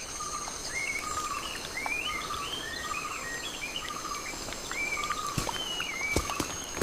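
Birds calling over and over, each call a short lower note followed by a higher, curving one, over a steady high-pitched insect drone. A few sharp clicks come near the end.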